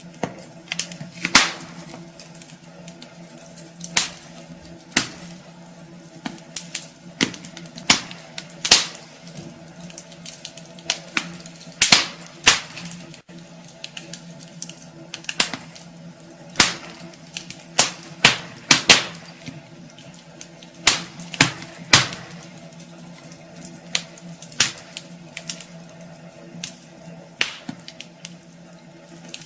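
Wood fire burning in a fireplace, crackling and popping with sharp, irregular snaps of varying loudness, over a low steady hum.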